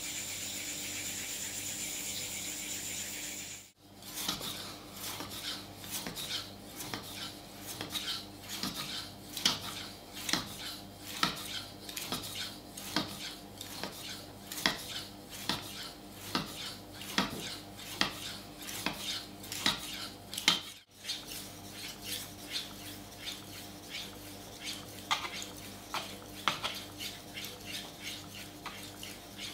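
Steel kitchen knife edge stroked back and forth on a wet whetstone, sharpening and polishing the bevels: short scraping strokes of metal on stone, about one to two a second. Before that, a steady rubbing hiss as a small block is rubbed over the stone's surface.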